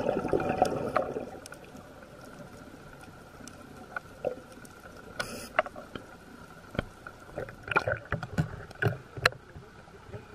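Underwater sound picked up by a dive camera: a loud rush of noise for the first second and a half, then a faint steady hum with scattered clicks and crackles.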